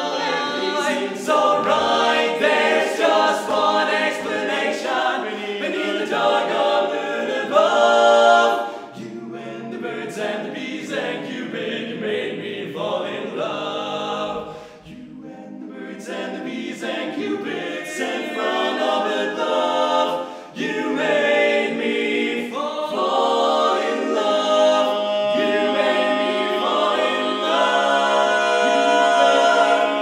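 Male vocal quartet singing a cappella in four-part harmony. The level dips briefly about halfway through, and a low bass note is held steadily through the last third.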